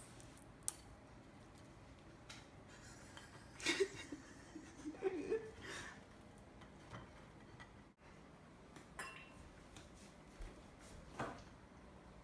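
Light clinks and knocks of dishes and cutlery, with a louder cluster of clatter about four to six seconds in.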